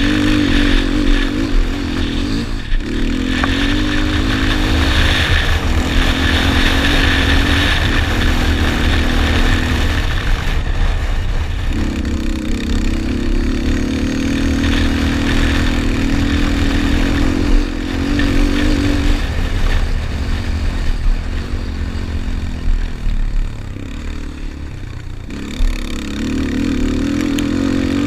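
Yamaha Raptor 250 quad's single-cylinder four-stroke engine revving hard under race load, its pitch climbing and falling, with the throttle shut off briefly a few times. A low wind rumble on the helmet microphone runs underneath.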